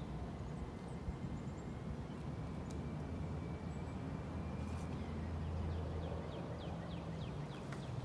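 Park ambience: a steady low rumble, with small birds chirping faintly and a quick run of chirps about six seconds in.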